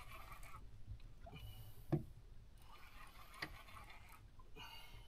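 Spinning reel ticking as it is cranked in short bursts about every second and a half while a hooked fish is fought, with a couple of sharp knocks in between.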